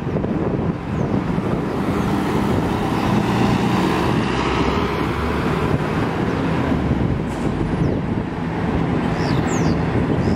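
Fire trucks' diesel engines idling steadily in the firehouse bay, mixed with city street traffic noise, with wind buffeting the microphone.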